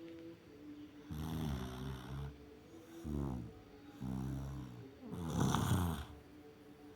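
A sleeper snoring: four snores in about five seconds, each lasting roughly half a second to a second, with short quiet breaths between them.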